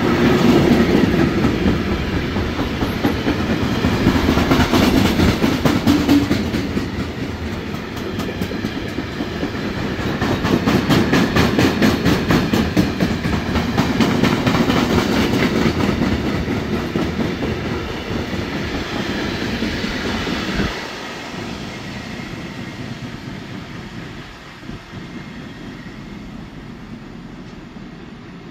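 Container wagons of a freight train rolling past, the wheels clattering in a steady rhythm over the rail joints with a heavy rumble. About two-thirds of the way through the last wagon goes by and the sound drops suddenly, then fades as the train draws away.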